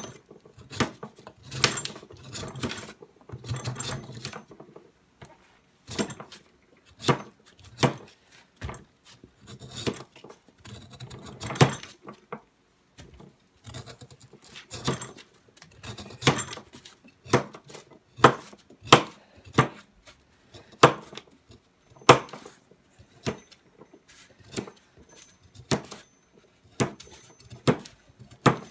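Knife blade shaving strips from the side of a hardwood mallet head, stroke after stroke; each cut ends in a sharp click, about one a second, with some scraping between strokes in the first few seconds.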